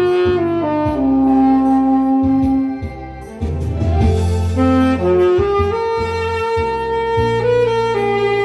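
Tenor saxophone playing the slow ballad melody in long, sustained notes, with one long held low note early on and a brief softer moment about three seconds in, over a backing track with bass and a regular beat.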